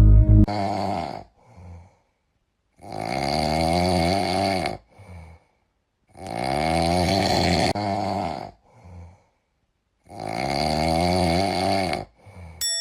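Loud, rhythmic snoring: long, rasping snores about every three and a half seconds, each followed by a short, fainter breath. Music stops about half a second in.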